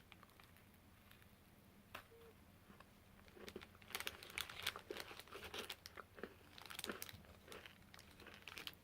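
Snack packaging crinkling and rustling as it is handled and torn open, in irregular bursts that begin a few seconds in, after a single click.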